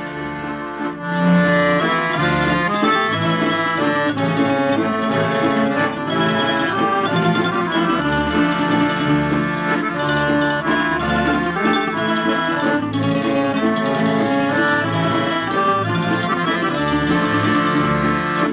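Instrumental break in a Slovak folk song, with the band playing the tune on accordion and strings to a steady beat and no singing.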